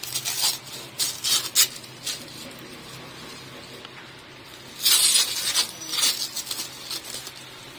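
Clear plastic wrap crinkling and rustling in irregular bursts as it is peeled off a new motorcycle exhaust silencer. The loudest burst of crinkling comes about five seconds in.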